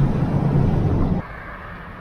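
Low engine and road rumble of a vehicle driving, which cuts off abruptly about a second in, leaving a much quieter background.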